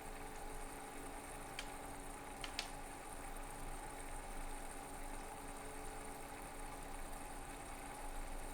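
Faint steady hum with a few steady tones, typical of a running desktop computer's fans, with two soft clicks at about one and a half and two and a half seconds in.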